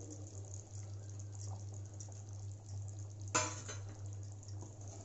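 Fish gravy simmering in a steel pot with a faint fizz over a steady low hum, and one sharp clink of metal against the pot about three and a half seconds in.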